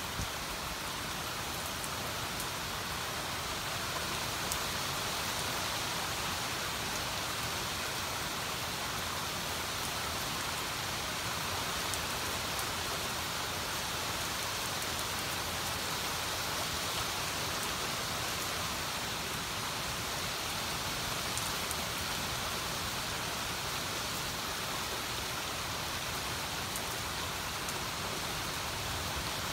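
Steady rain falling on garden leaves and wet stone paving: an even, constant hiss with occasional sharper single drop hits.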